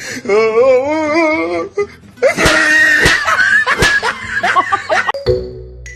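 A drawn-out, wavering voice, then about three seconds of laughter. A light musical tune starts near the end.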